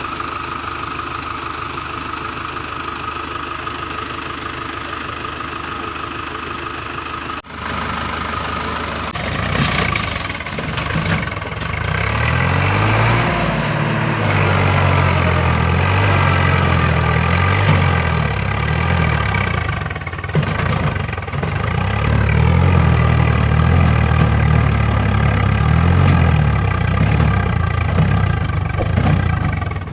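Tractor engine sound running steadily. About seven seconds in, a sudden break gives way to a louder, heavier engine note that rises and falls.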